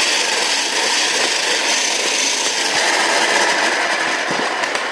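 Foam-dart blaster's flywheels spinning, a steady mechanical whir with a fine rapid ticking that lasts about five seconds.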